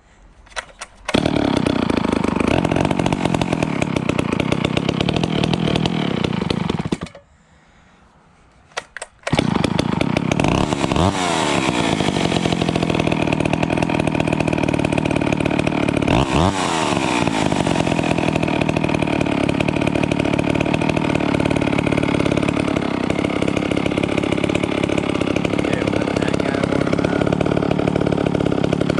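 Vintage PM Canadien 340 two-stroke chainsaw with a custom exhaust, cold-started: it catches about a second in and runs, dies a few seconds later, is pulled over again and restarts, then runs on with two sharp revs of the throttle.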